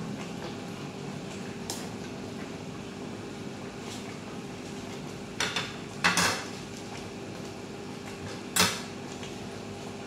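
Cooking utensils knocking and clinking against a stainless steel soup pot while greens are stirred, with a few sharp knocks about halfway through and one more near the end. A steady low hum runs underneath.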